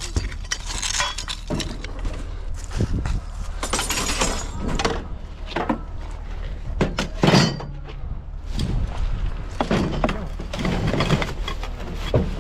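Curbside junk and scrap being handled and loaded: a string of irregular clatters, knocks and thuds, the loudest about seven seconds in, over a steady low hum.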